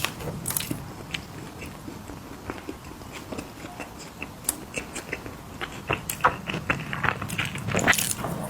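Close-up crunching and chewing of small crunchy cookies, with irregular sharp crunches that get denser and louder near the end.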